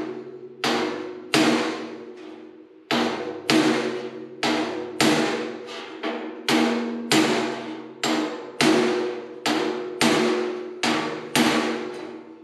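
A hammer striking the sheet-steel grille shell of a Farmall M tractor against a backing dolly, about eighteen sharp blows at an uneven one or two a second with a short pause near the start. The panel rings briefly after each blow. This is hammer-and-dolly work tapping a caved-in dent back into shape.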